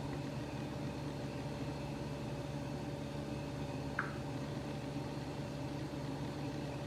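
Steady low mechanical hum with a faint noise haze, and a single soft click about four seconds in.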